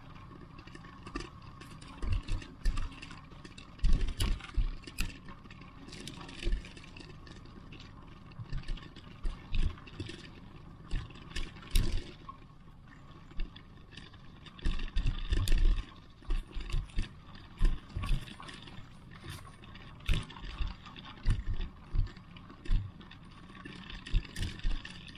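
Street ambience picked up by an action camera, with a steady background hum broken by many irregular low thumps, knocks and rattles.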